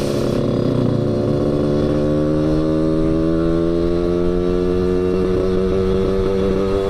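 Yamaha RX-King 135cc two-stroke single-cylinder motorcycle with a Medan-style under-belly expansion-chamber exhaust, under way and pulling through one gear. The engine note rises slowly and steadily as the bike gains speed.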